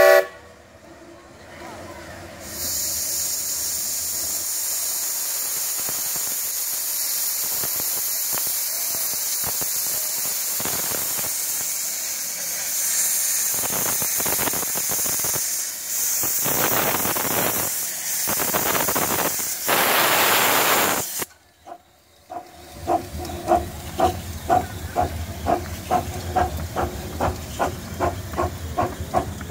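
Miniature live steam locomotive blowing off steam with a loud steady hiss, the steam venting from its open cylinder cocks. About three-quarters of the way through the hiss cuts off. The locomotive then starts away with a steady rhythm of exhaust chuffs, a little over two a second.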